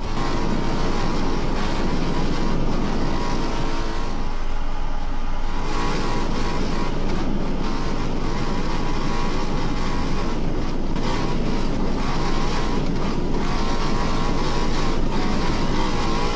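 Off-road rally car engine running hard at high revs, easing briefly about four seconds in before pulling hard again.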